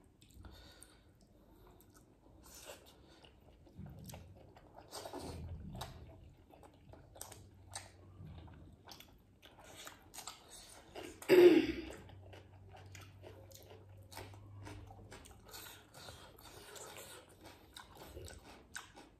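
People chewing and biting into steamed chicken momos, with many small wet mouth clicks and smacks. One brief, much louder sound stands out about eleven seconds in.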